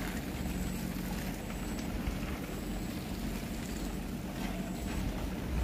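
A steady low rumble, with a faint high thin tone pulsing on and off about once a second.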